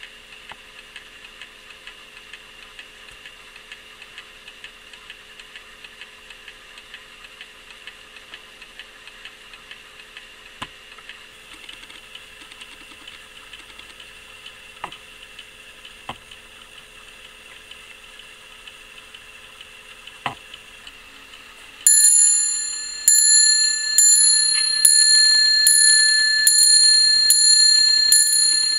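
Brocot-stamped Paris clock movement with front escapement, running without its pendulum: quick, even ticking with a few louder clicks. About 22 seconds in, its hammer starts striking the bell, a little over once a second, each strike a clear ringing tone that dies away, as it sounds the hour.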